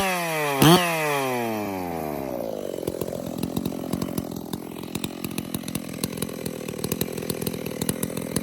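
Makita 6401 two-stroke chainsaw, fitted with a Stihl 046 dual-port muffler and a West Coast Saw bark box cover, blipped twice to high revs and then winding down to a steady idle. It runs with no bar and chain, so there is no load on the engine.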